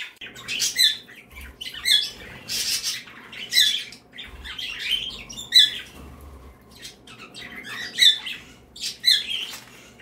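Pet budgerigars calling: short, sharp high-pitched calls about once a second, some much louder than the rest.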